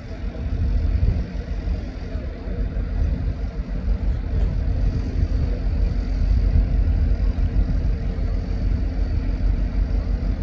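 Engine of a large boat-launching forklift running steadily, a low rumble with a faint steady hum over it.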